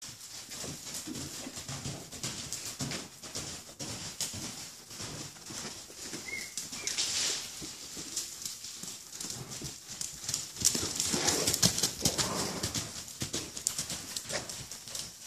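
A horse's hoofbeats on the loose sand of an arena as it moves about at liberty, a busy run of short thuds that is loudest about eleven to thirteen seconds in.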